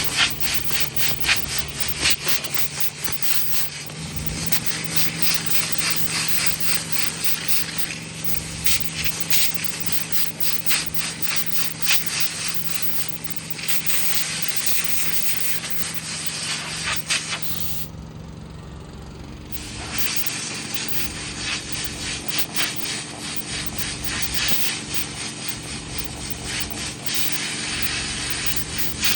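Compressed-air blowgun blasting dust out of a dirty air-conditioning air filter, a rough, fluttering hiss that stops for about a second and a half near two-thirds of the way through, then starts again. A steady engine hum runs underneath.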